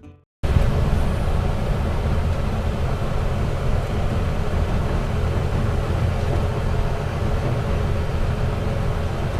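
Converted school bus driving: a steady engine and road rumble with a low hum, heard from inside the vehicle.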